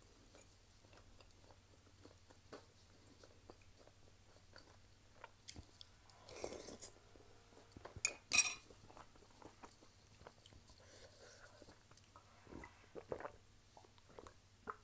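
Close-miked eating sounds: chewing with small wet mouth clicks, and a spoon clinking sharply against a glass bowl about eight seconds in.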